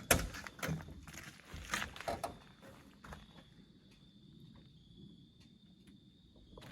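A few knocks and shuffling sounds in the first three seconds, then a steady high-pitched drone of insects for the rest.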